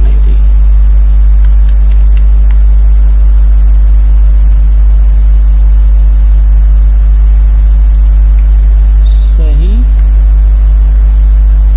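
Loud, steady low hum with a few fainter steady tones above it, unchanging throughout.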